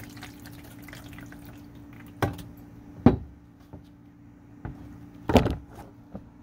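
Water poured from a glass jug over a wet plate collodion tintype in a plastic developing tray, trickling and splashing to stop the development, with a few sudden louder knocks about two, three and five seconds in, over a steady low hum.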